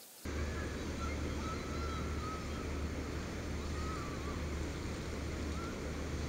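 Wind buffeting the microphone in a steady low rumble that starts abruptly just after the beginning, with a bird's warbling song faintly behind it.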